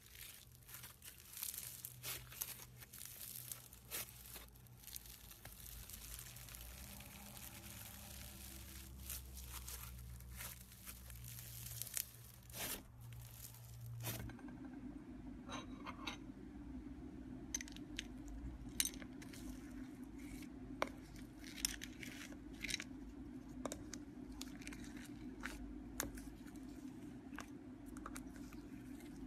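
Crunchy, foam-bead-filled slime being stretched, squeezed and pressed by hand, crackling and popping with many small clicks. About halfway through a steady low hum comes in beneath sparser sharp clicks.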